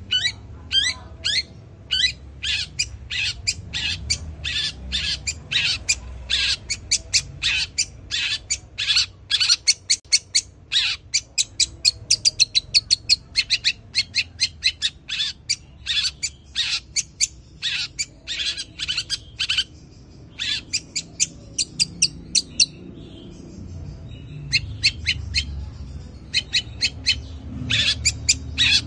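Caged long-tailed shrike (cendet) singing a fast run of sharp, downward-sweeping chirps, about three to four a second, in the house-sparrow-like style its keeper calls "suara gereja". The run breaks off briefly twice about two-thirds of the way through, then picks up again.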